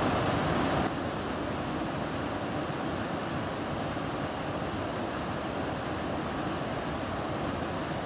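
Steady rush of fast-flowing river water pouring over a weir, picked up by the camera's built-in microphone; it drops slightly in level about a second in.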